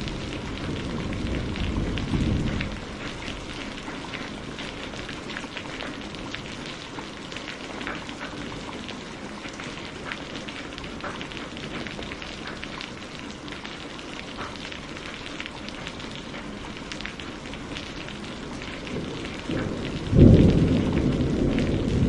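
Steady rain falling, with many separate drops pattering. A low rumble of thunder fades out in the first few seconds, and a loud clap of thunder breaks in about two seconds before the end and keeps rolling.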